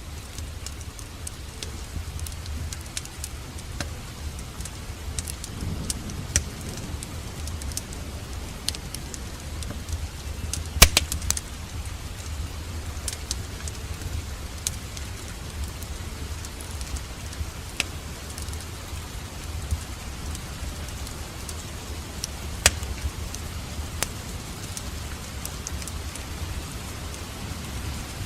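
Wood fire burning in a fireplace, crackling with scattered sharp pops over a low, steady rumble. The loudest pops come about a third of the way in and again about four-fifths of the way in.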